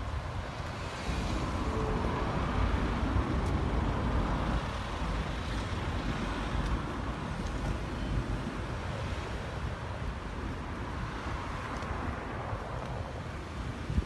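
Street traffic noise with wind buffeting the phone microphone. It grows louder for a few seconds starting about a second in.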